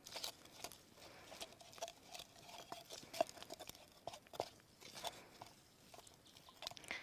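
Hands mixing a flour, salt and water dough in a cup, giving faint, irregular sticky squishing and light clicks.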